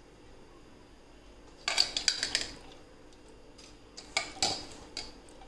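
A steel plate clatters against an aluminium pressure cooker as washed chana and moong dal are tipped into it. There are two bursts of metallic clinks and rattles, about two seconds in and again near the end.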